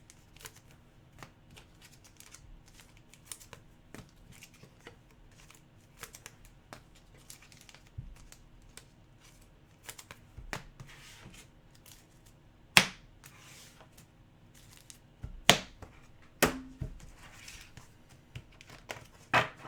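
Mosaic basketball trading cards being handled and sorted by hand: soft rustles and light clicks of card against card, with a few louder sharp taps about two-thirds of the way in and near the end.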